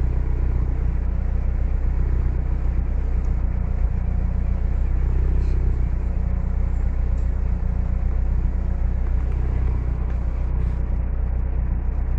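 Toyota 3S-GTE turbocharged four-cylinder engine idling steadily after its first start on a MegaSquirt 3 ECU's base calibration.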